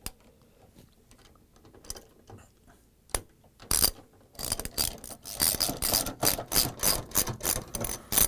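Ratchet socket wrench with extension clicking as it runs a 3/8-inch bolt in: a few single clicks, then from about four seconds in rapid ratcheting in repeated bursts, several strokes a second.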